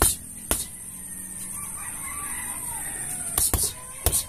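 Boxing gloves punching a homemade punching bag wrapped in black plastic: a hit at the start and another about half a second in, then two quick pairs of hits near the end. A rooster crows in the background in the gap between the punches.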